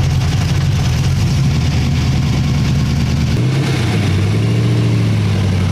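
Loud engine idling, a steady low rumble whose pitch drops slightly and settles about three and a half seconds in.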